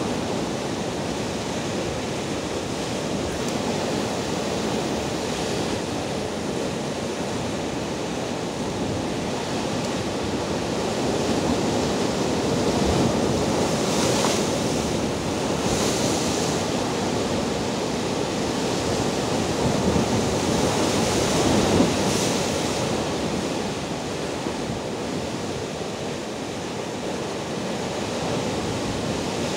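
Rough sea surf churning and breaking over shoreline rocks: a steady rush of water, with a few louder, hissing splashes in the second half.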